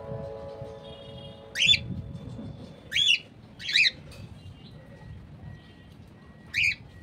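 Cockatiels giving four short, shrill chirping calls, two in quick succession in the middle.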